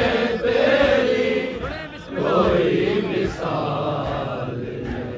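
Men's voices chanting a manqabat, a devotional poem in praise of Imam Hussain, in long held notes that bend in pitch.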